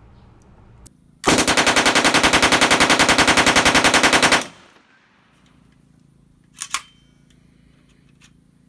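A fully automatic gun firing one long burst of rapid, evenly spaced shots for about three seconds. A couple of short sharp clicks follow.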